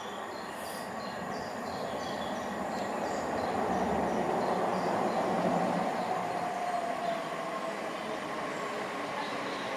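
Southeastern Class 375 Electrostar electric multiple unit running in towards the station platform. It grows louder up to about halfway through, with a whine that falls in pitch as it slows.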